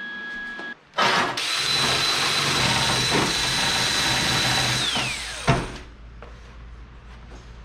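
Power grinder starting about a second in and running with a steady high whine while grinding down a welded steel intake, then switched off and spinning down near the end, with one sharp knock as it winds down.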